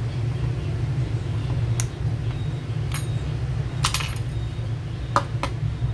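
Several short, sharp clicks of fingers and fingernails catching on the metal edge of a Huawei P8 Max phone as its back cover is pried at, over a steady low rumble.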